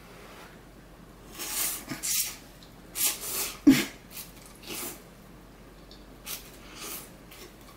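Instant ramen noodles being slurped off chopsticks: a series of short, airy slurps, the loudest near the middle.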